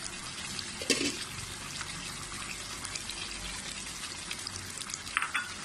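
Mutton curry gravy simmering and bubbling in an open wok, a steady wet crackle, with a short knock about a second in.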